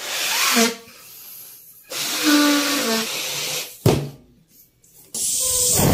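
A rubber balloon being blown up by mouth: long puffs of rushing breath forced into it, the second with squeaky tones from the stretched neck, and a sharp knock about four seconds in. A loud steady rushing hiss starts near the end.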